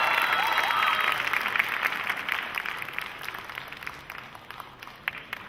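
Audience applauding, with a few whoops and cheers in the first second. The clapping thins out and fades into scattered single claps near the end.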